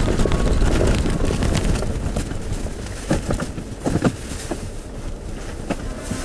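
Jeep Wrangler JK driving on a rough unpaved forest road: a low rumble with wind on the microphone and a few sharp knocks from the bumps, about three and four seconds in.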